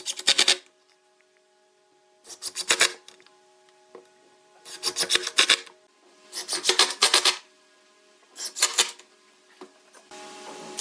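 Wood being worked by hand with a rasp or abrasive in rapid back-and-forth strokes, in about five short bouts of half a second to a second each, with brief pauses between.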